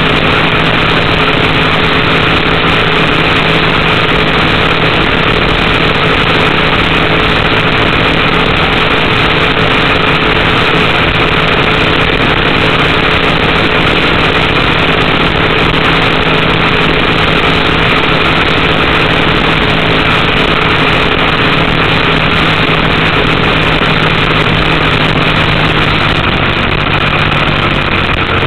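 Race boat's Chevrolet engine running at a steady, held-back speed under way, a continuous loud drone heard on board. The engine is being nursed because of an oil pressure problem. Its note dips slightly near the end.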